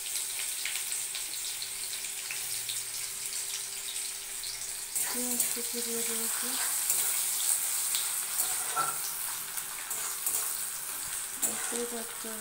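Onions and a bay leaf sizzling in hot oil in a steel kadai: a steady hiss with small crackles, and a steel spatula scraping the pan as they are stirred. The sizzle gets louder about five seconds in.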